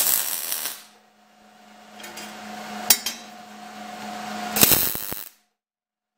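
MIG welder (.030 ER70S-6 wire, C-25 gas) striking short tack welds on 14-gauge galvanized sheet: a brief burst of arc crackle and spatter at the start and another about four and a half seconds in, with a low steady hum between them. The sound cuts off suddenly just after the second tack.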